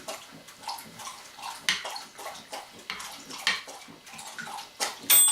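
A hound dog lapping water from its bowl: irregular wet slurps and small splashes. A louder, sharp knock comes near the end.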